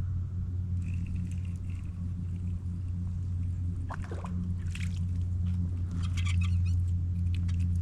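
Boat motor running with a steady low hum. About four seconds in a short falling squeak, then a run of light clicks and rattles.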